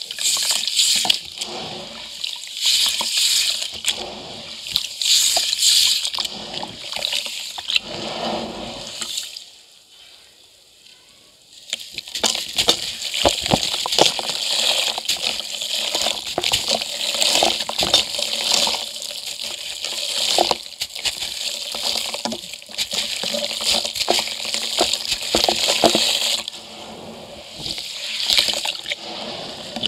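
Grainy concrete crumbled by hand into water in a steel bucket: gritty crunching, with showers of grains splashing into the water. It stops for about two seconds around ten seconds in, then goes on steadily.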